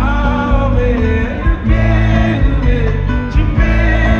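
Live band music through a concert PA, with a singer's voice gliding over a steady bass and backing, heard loud from within the crowd.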